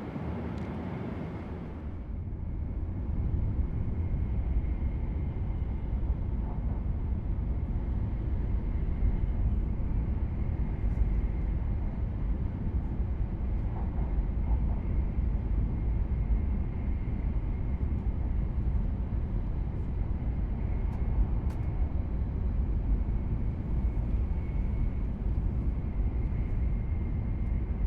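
Shinkansen bullet-train cabin sound: a steady low rumble with a faint high hum, growing louder about two seconds in.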